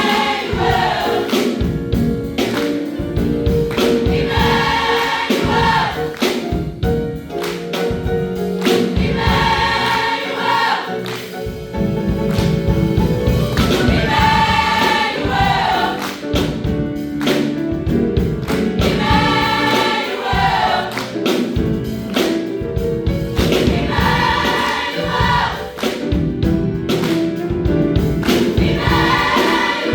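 A choir singing a gospel-style song, its phrases recurring about every five seconds over instrumental accompaniment with a steady beat.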